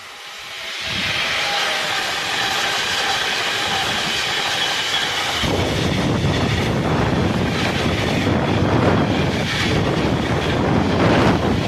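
Class 186 electric locomotive running through at speed with a high whine, then a long rake of bogie tank wagons rolling past close by. From about halfway through, the wagons' wheels make a heavy rumble with irregular clattering over the rail joints.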